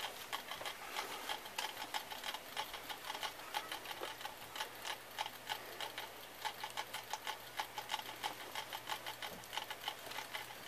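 Fast, uneven clicking and scratching, several clicks a second, from rats scrambling about in a wire cage with wood-shaving bedding.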